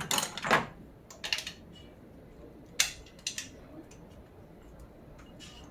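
Metal hand tools and engine parts clinking and clattering in irregular sharp clicks, the loudest cluster in the first half-second and more around one and three seconds in, as the top of an engine is taken apart.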